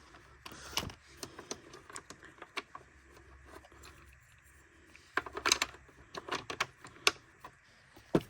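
Light irregular clicks and taps of plastic vacuum parts and screws being handled during reassembly, with a quick cluster of clicks about five to seven seconds in.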